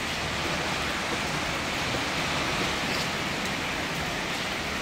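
Hail and rain falling heavily in a steady, dense hiss, with a few faint ticks from hailstones striking.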